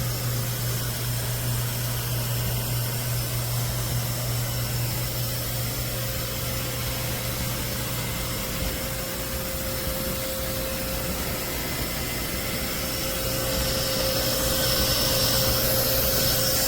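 Narwal Freo X Plus robot vacuum running on its highest suction setting: a steady whirring hum with a thin constant whine, growing a little louder near the end.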